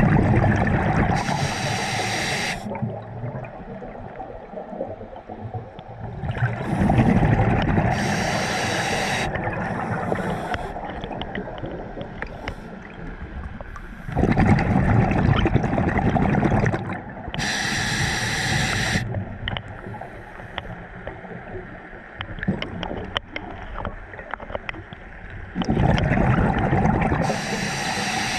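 A scuba diver's breathing heard underwater: slow breaths every eight to ten seconds, each a loud spell of bubbling and rushing gas with a high hiss, with quieter water noise between.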